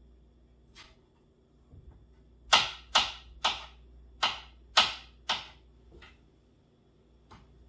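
Six sharp knocks of a kitchen utensil in quick succession, about two a second, each with a short ring, with a few fainter clicks before and after.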